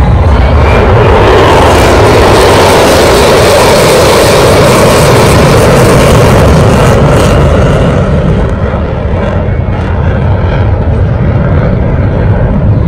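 Loud, steady rushing roar of a fighter jet's engine in flight, easing off a little after about eight seconds.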